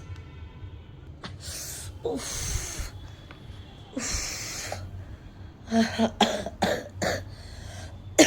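A woman with a cold and chest congestion coughing: a few longer, harsh coughs, then a quick run of about five short coughs near the end.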